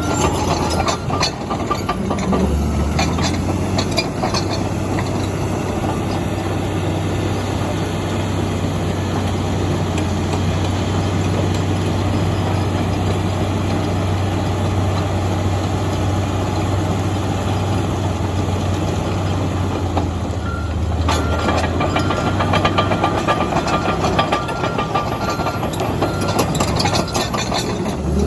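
Komatsu D85EX bulldozer's diesel engine running under steady load, with the tracks clanking. An interrupted high-pitched tone sounds near the start and again through the last quarter.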